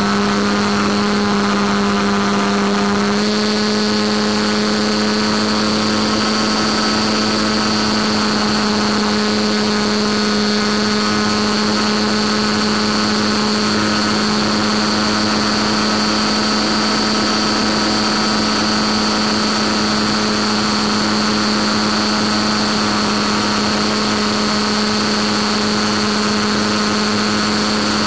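Steady droning hum over a hiss on an FPV model airplane's onboard audio while it glides at zero throttle. The pitch steps up slightly about three seconds in.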